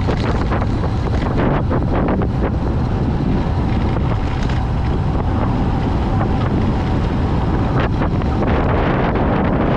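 Wind rushing over the microphone of a cyclist descending a mountain road at speed, a loud steady roar with a few brief knocks.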